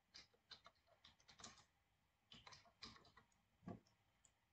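Faint typing on a computer keyboard: a dozen or so light, irregular keystrokes, the loudest about three and a half seconds in.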